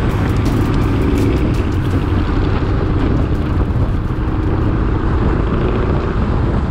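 Cars driving at speed: a steady drone of engine, tyres and wind, with the V8 of the tuned Jeep Grand Cherokee Trackhawk ahead pulling away, its engine note fading about halfway through.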